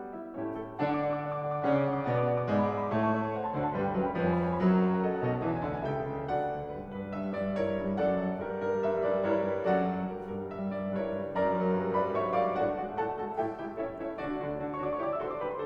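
Background piano music: a steady run of notes over a bass line.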